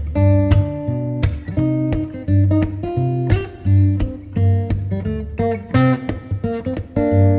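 Background music: strummed acoustic guitar with a steady beat and bass.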